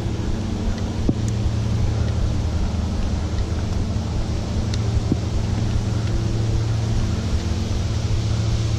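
Steady low rumbling hum with a haze of noise above it, broken by a few faint clicks about a second and five seconds in, from gear clipped to a hiker's loaded 45-litre backpack.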